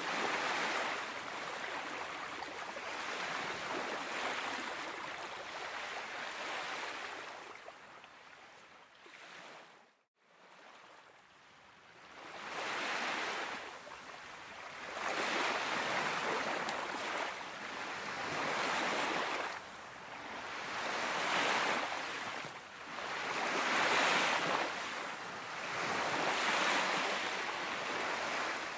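Small Baltic Sea waves washing onto a beach, each wash swelling and fading every two to three seconds. The sound cuts out briefly about ten seconds in, then the waves go on.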